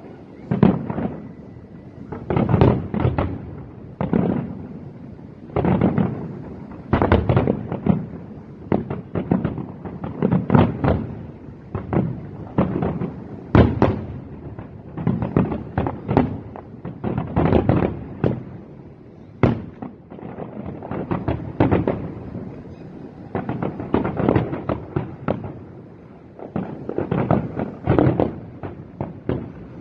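Aerial fireworks shells bursting in a continuous barrage: an irregular run of booms, often several in quick succession, each trailing off in a rumble.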